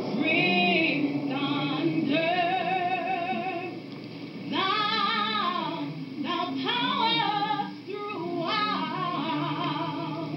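Background music: a woman singing in long held notes with vibrato, over accompaniment.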